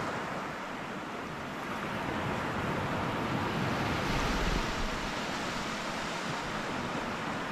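Surf washing onto the beach, with wind. The steady noise swells about halfway through.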